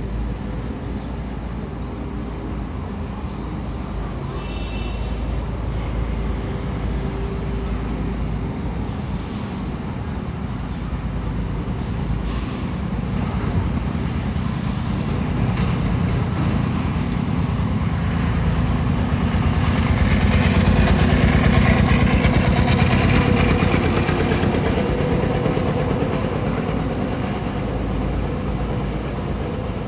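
Heavy diesel construction machinery, most likely an excavator's engine, running steadily with a low rumble that grows louder about two-thirds of the way through.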